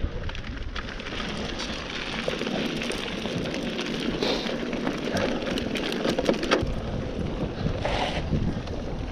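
Mountain-bike riding noise: wind buffeting the camera's microphone while the tyres roll over gravel and dirt trail. The bike rattles over bumps as a steady stream of small clicks.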